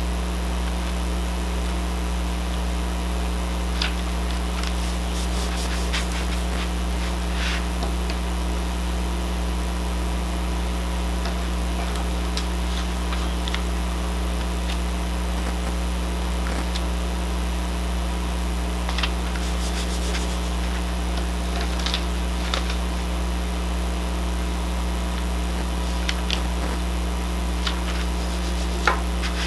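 A steady low hum, with a few faint, scattered rustles and taps of paper strips being laid and pressed flat by hand on a diamond painting canvas.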